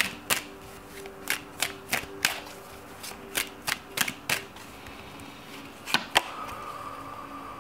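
A small oracle card deck shuffled by hand: a quick run of sharp card snaps and taps, several a second, stopping after about four and a half seconds, then two more snaps about six seconds in as a card is pulled out.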